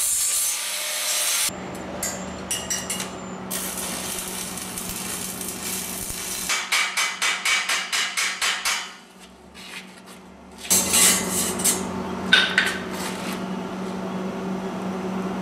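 Metalworking on a frame of bent steel conduit pipe: a loud hiss at the start, scattered knocks and scraping, and a quick run of metal taps about five a second midway, over a steady low hum.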